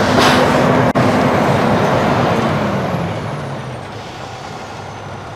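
Ready-mix concrete truck's diesel engine running at raised revs, then winding down in pitch and level from about halfway through. A short hiss of air comes near the start.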